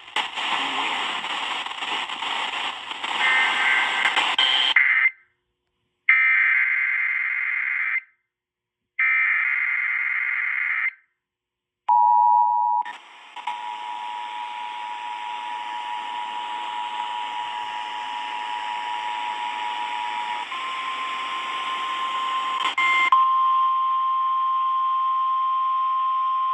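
Emergency Alert System test received on FM radio through static hiss: three warbling bursts of digital header data about a second apart, then the steady two-tone attention signal, which changes to a single steady tone as the hiss cuts out near the end.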